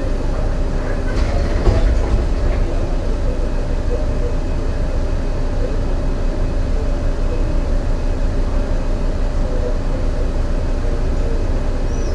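MAN NL202 CNG city bus driving under way, heard from inside the cabin: a steady engine drone with a steady whine over it from the ZF automatic gearbox, and a few knocks about a second or two in. The engine has a bad misfire.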